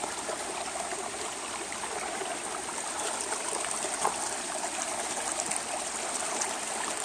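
Creek water running steadily over rocks, a constant rushing and trickling.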